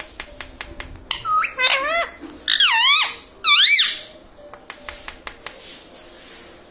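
Pet ringneck parrot giving three or four loud, high, wavering calls in quick succession, starting about a second in and ending near four seconds; faint sharp clicks patter throughout.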